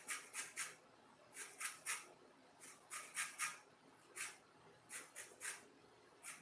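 Lemon rind being zested on a metal box grater: short scraping strokes in quick runs of two to four, with brief pauses between runs.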